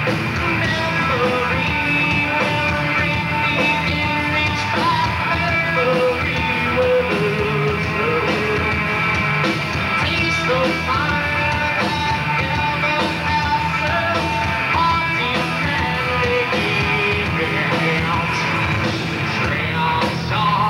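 A live rock band playing loud: distorted electric guitars, bass guitar and a drum kit with cymbals, with a vocalist singing and shouting into the microphone.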